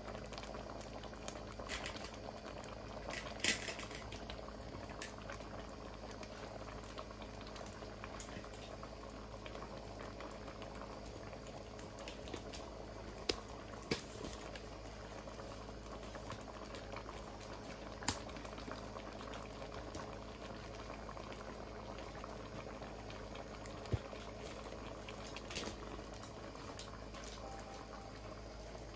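A pot of stew peas with pigtails and dumplings simmering, bubbling steadily, with a few sharp clicks scattered through.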